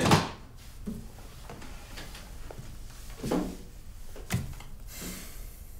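Soft, scattered knocks and handling noises of objects being moved about on a desk, the two loudest about a second apart near the middle, over a low room hum.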